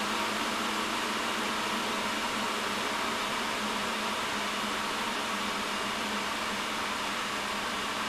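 The centrally mounted blower-style fan of an AMD Radeon HD 6990 dual-GPU graphics card runs at high speed as a steady rush of air. It eases down slightly as the fan speed drops from about 92% to 82% once manual fan control is switched off.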